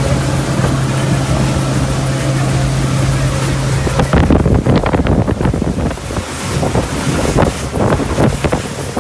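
Boat engine running steadily at a low pitch, then cutting off suddenly about four seconds in. Wind buffeting the microphone and water noise follow.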